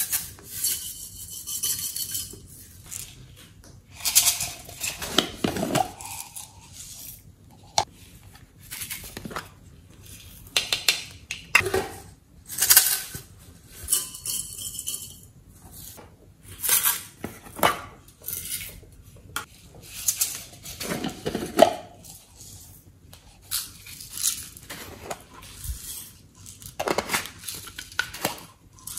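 Small plastic glitter tubes and pots being handled, shaken and opened by hand: a string of irregular clicks, rattles and scrapes of plastic lids and containers.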